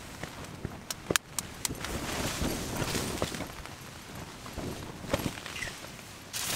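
An egg being cracked on the rim of a small camping pot: a few sharp taps close together about a second in, over a steady hiss of wind.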